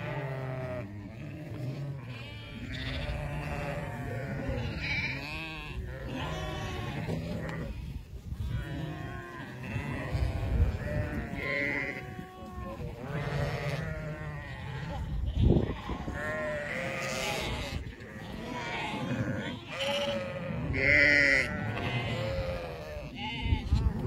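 A large mob of sheep bleating continually, many calls overlapping, some high and quavering.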